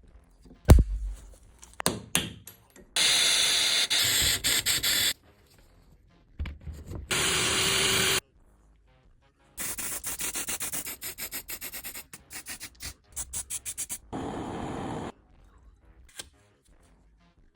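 Abrasive scrubbing of the rusty metal parts of an old mechanical pencil sharpener: several stretches of rapid rubbing strokes, after a sharp knock about a second in.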